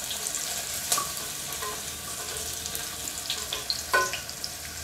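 Sliced onions sizzling in hot oil in a pressure cooker while being stirred with a wooden spatula, with a few short scrapes and knocks of the spatula against the pot, clearest about a second in and near four seconds.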